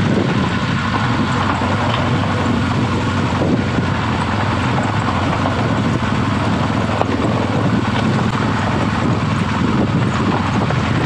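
BMW R1200GS Adventure's boxer-twin engine running steadily, under a constant noisy rush.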